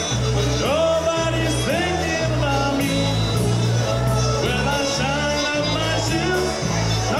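Live polka band playing an upbeat dance number, with singing over a bass line that changes note about every half second.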